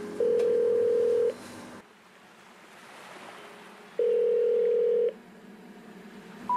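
Telephone ringing tone, two steady rings about a second long each, spaced about three seconds apart; the ringing belongs to the background music track, not a real phone.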